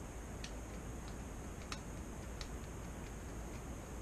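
Small wire jig hooks being handled, giving a few light, irregular metallic clicks over a steady low hum and hiss.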